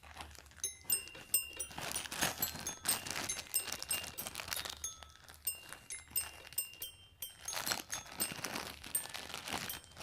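Crinkling and tearing of a small package's wrapping as it is pulled open by hand, an irregular run of crackles and rustles.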